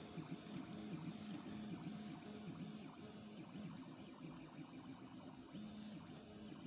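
Stepper motors of a home-made 3D printer used as a pen plotter, whirring as they drive the pen over the paper. The low hum keeps jumping to a new pitch every half second or so as each stroke changes direction and speed.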